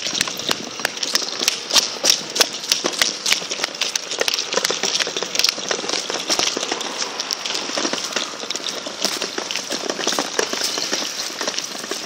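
Plastic wheelie bin being rolled on its wheels over rough concrete, a dense, irregular rattling clatter.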